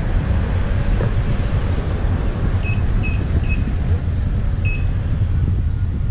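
Steady wind buffeting and a low road rumble on the camera microphone while an electric unicycle rides along. About two and a half seconds in come three quick, short, high-pitched electronic beeps, then a fourth a second later.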